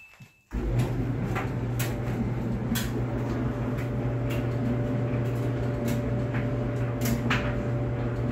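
Clothes dryer starting up about half a second in, then running with a steady low motor hum and drum rumble. Irregular light knocks come from the tumbling drum, and a faint steady whine joins about three seconds in.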